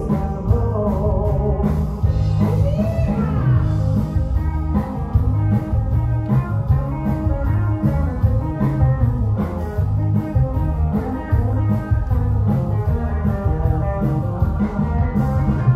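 Live rock band playing: electric guitar, bass guitar, keyboard and drum kit with a steady beat and a heavy bass line.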